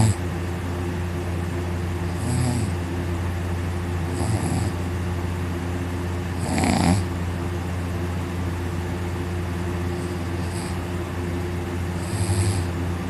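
A man snoring loudly in deep sleep, lying on his back with his mouth wide open. There is a snore about every two seconds, the strongest a little past the middle, over a steady low hum.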